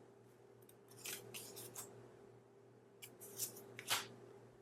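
Faint rustles and slides of cardstock pocket cards being handled: a few short strokes about a second in and again around three to four seconds in, over a faint steady hum.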